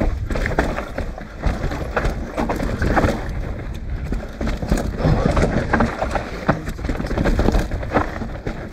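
Mountain bike riding fast down dirt singletrack: tyres rolling over dirt and roots, with irregular clatter and knocks from the bike rattling over bumps above a steady low rumble.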